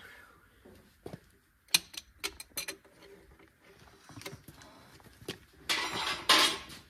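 Wrench working the nuts on a tractor's rear wheel hub: a series of sharp metal clicks and clinks, then a scraping burst about a second long near the end.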